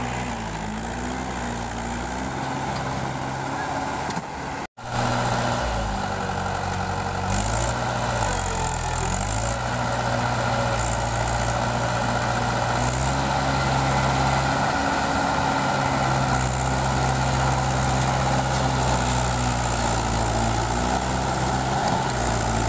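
Tractor diesel engine running, its pitch dipping and rising twice as the throttle changes. The sound cuts out for an instant about five seconds in, then the engine carries on steadily.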